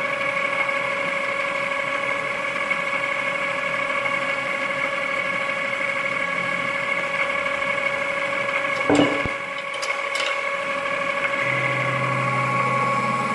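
Metal-spinning lathe running, turning a copper blank on its mandrel, with a steady whine of several held tones. A single sharp knock comes about nine seconds in, and a low hum joins near the end.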